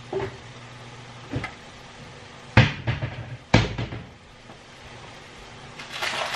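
Kitchen cupboard doors knocking and banging shut as things are put away: two light knocks, then two loud bangs with a short rattle after each, about a second apart in the middle, and a softer rustle near the end.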